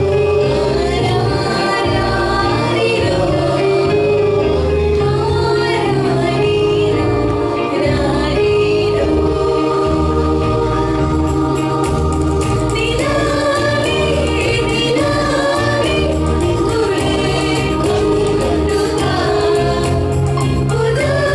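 Mixed choir of women's and men's voices singing a Christian song into stage microphones, with low bass notes moving in steps beneath the voices.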